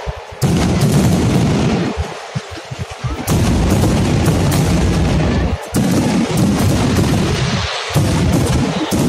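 Fireworks: a dense barrage of shell bursts and rapid crackling explosions, with a few short lulls.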